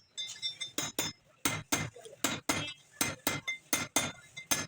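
Repeated sharp metallic clinks: about a dozen irregular taps of metal on metal, each with a short ringing tone.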